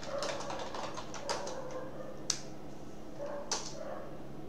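Computer keyboard typing: scattered keystrokes at an irregular pace, a few sharper than the rest, over a steady low hum.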